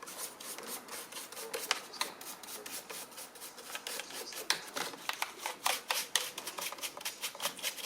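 Hands scraping, rubbing and clicking on the plastic parts of a Dyson V6 cordless vacuum, a quick irregular run of small scratchy strokes.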